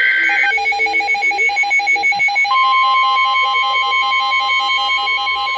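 Emergency Alert System tones from a NOAA Weather Radio broadcast: the tail of the SAME data header warbles and ends about half a second in, a rapid electronic beeping pulses throughout, and about two and a half seconds in the steady 1050 Hz weather radio warning alarm tone starts and holds, announcing a warning.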